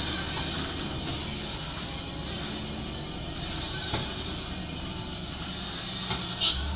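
Loaded Hino dump truck's diesel engine running as it goes down a steep descent, a steady low drone. A sharp click comes about four seconds in, and a short, loud hiss near the end.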